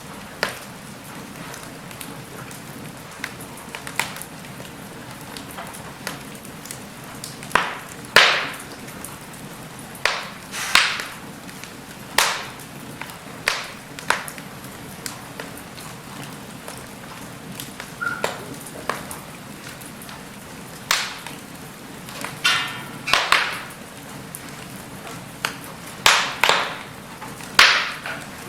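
Log fire burning in a fireplace: a steady hiss with irregular sharp crackles and pops every second or two.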